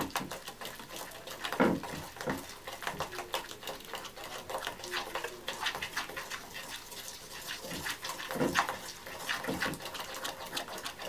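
Plastic knife stirring a wet, mud-like paste of bentonite clay and apple cider vinegar in a glass bowl: many quick wet clicks and squelches, with the knife tapping against the glass.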